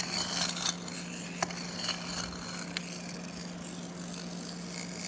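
Tin-plate toy train being handled and turned in the hands: a few light metallic clicks and small scrapes in the first three seconds, over a steady low hum.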